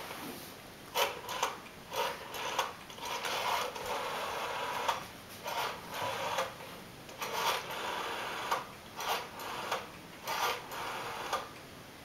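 Black rotary-dial telephone being dialled digit after digit: the dial is turned round again and again and whirs back with ticking clicks.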